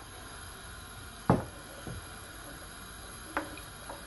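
Wooden spoon knocking against the side of a pot of water and potato chunks while stirring: one sharp knock about a second in, a fainter one just after, and another near the end.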